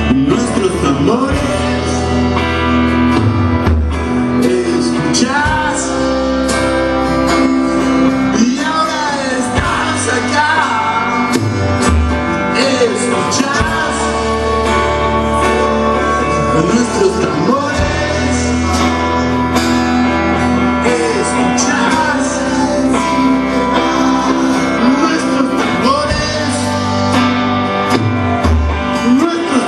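Live band playing a song: a male voice singing over strummed electric and acoustic guitars and a drum kit.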